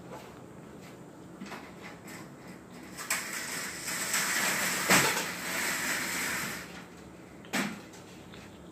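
A fingerboard being worked with its skate tool: a scraping, rubbing noise for about three seconds starting about three seconds in, with a sharp click about five seconds in and another near the end.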